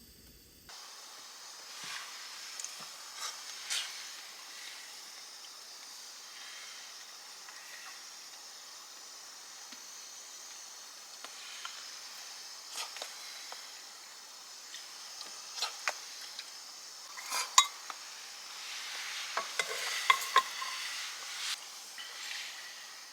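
Food sizzling in a pan, with scattered clinks of a utensil against the pan, busiest near the end.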